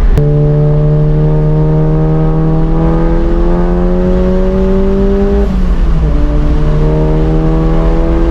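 Turbocharged four-cylinder of a tuned Volkswagen Golf MK7 GTI with a big-turbo upgrade and aftermarket exhaust, accelerating hard under load with its pitch climbing steadily. About five and a half seconds in, the pitch drops at a gear change, then the engine pulls again.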